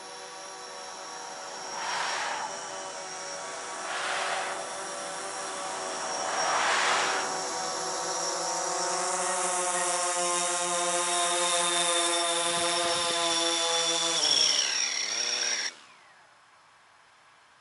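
DJI Phantom 4 Pro quadcopter's propellers whining as it flies in and descends to land, getting louder as it comes close, with three brief rushes of air early on. Near the end the pitch falls as the motors spin down after touchdown, and the sound cuts off.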